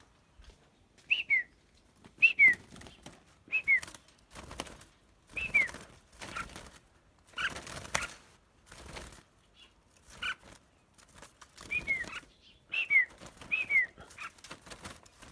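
Caged songbirds at a singing contest whistling short two-note phrases that fall in pitch, repeated about once a second. Brief noisy bursts come in between, loudest around the middle.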